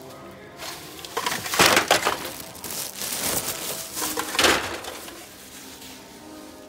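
Plastic bin liner crinkling and rustling as a blue recycling bin is handled, in several bursts, loudest about a second and a half in and again near four and a half seconds.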